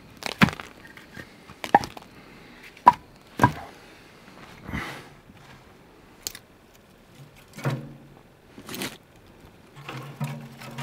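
Split firewood logs knocking against each other as they are handled and set down, four sharp wooden knocks in the first few seconds. Then softer clatter and rustling as kindling and paper are laid into a small steel wood stove.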